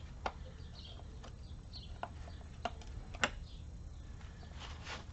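Scattered light metallic clicks and taps, about five separate ones with the sharpest a little past three seconds in, as bolts and hand tools are handled while a transfer case is being taken apart.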